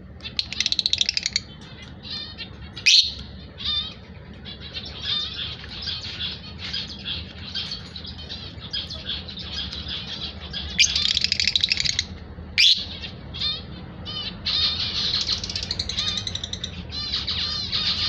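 A pair of blue Fischer's lovebirds chattering: rapid, high-pitched chirps and twitters almost without pause, over a steady low hum. Louder, shrill runs of fast chirping come about a second in, around eleven seconds, and through the last few seconds.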